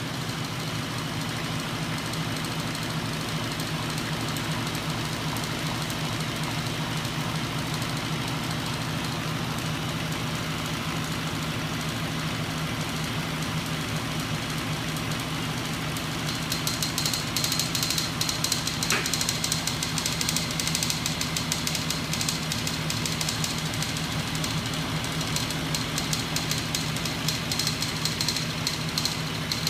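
Home-built magnet 'ornithopter' engine rig running, its electric motor, flywheels and swinging magnet arms giving a steady mechanical hum with fast clicking. About halfway through, a sharper, rapid rattle grows louder.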